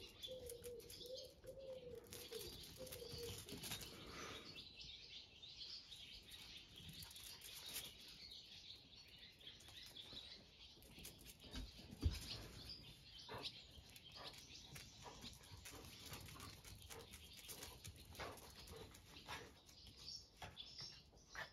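Quiet outdoor ambience with small birds chirping and a low wavering call during the first three seconds. Faint scattered ticks, and one brief thump about twelve seconds in.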